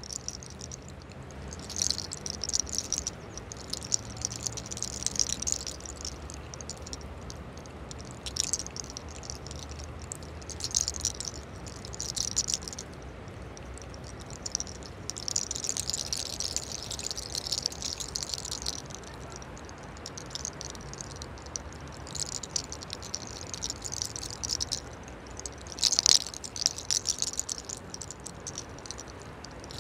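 Fingers rubbing and rolling small locks of hair against the scalp, giving a dry crackling rustle that comes and goes in irregular bursts, with one louder crackle near the end. A low steady rumble runs underneath.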